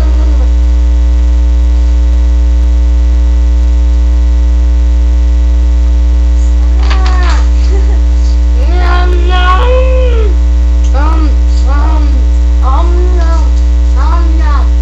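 Loud steady electrical mains hum. From about seven seconds in, a girl's voice comes in over it in short rising-and-falling sounds without clear words.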